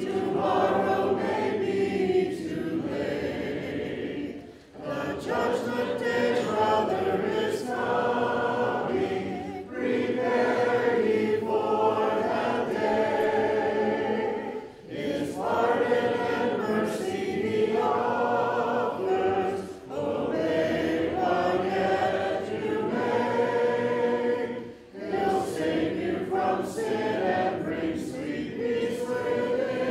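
Church congregation singing a hymn a cappella, with no instruments. The phrases break briefly for breath about every five seconds.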